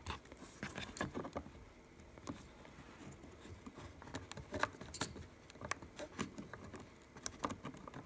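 Faint, irregular small clicks and scrapes of fingers handling a RAM module and its loose heat sink, fumbling it against the iMac's memory socket.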